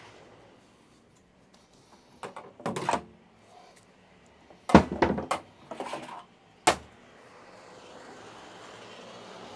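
Knocks and clatter of tools and parts during repair work under a pickup truck: a few light clicks about two seconds in, then a loud knock with a run of clattering about five seconds in, and a last sharp knock near seven seconds.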